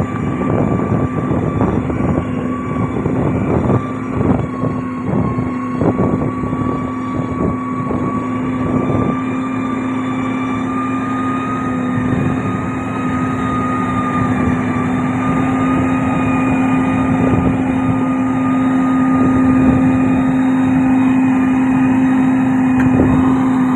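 Heavy diesel road-construction machine running with a steady engine hum. Irregular knocks and rattles come through during roughly the first ten seconds, then the sound settles into a smoother, steady drone.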